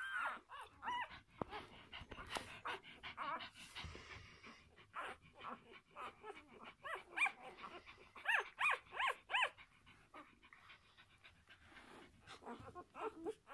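Newborn puppies, six days old, squeaking and whimpering in short, high cries that rise and fall in pitch, with a quick run of squeaks about eight to nine and a half seconds in. Faint clicks and rustles come between the cries.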